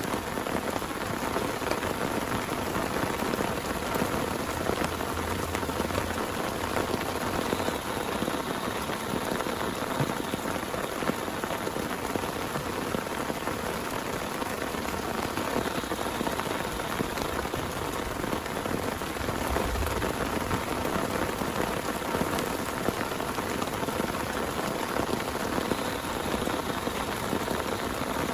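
Heavy rain falling steadily, with the odd sharper drop hit standing out.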